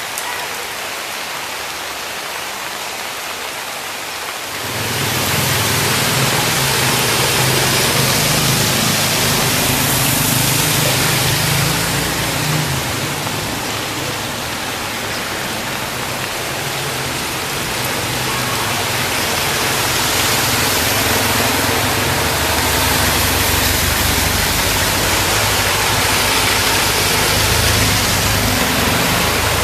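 Steady rain hiss over a flooded street, with the engines of motorbikes and a small truck running as they drive through the floodwater. It gets louder about four seconds in.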